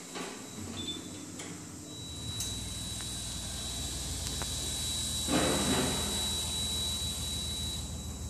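Small wheeled mobile robot driving across a tiled floor: its electric drive motors give a steady low hum with a thin high whine from about two seconds in until near the end. A brief rushing noise comes a little past halfway, the loudest moment.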